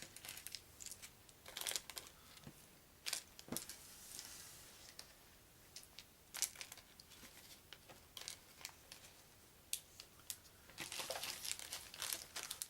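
Small plastic baggies of game pieces crinkling and rustling as they are handled, with scattered light clicks of small pieces; the crinkling gets busier near the end.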